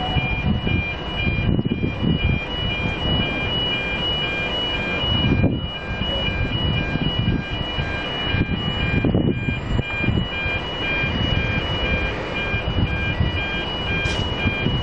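Level crossing warning bells ringing in a steady repeating pattern, signalling an approaching train, over a heavy, uneven low rumble.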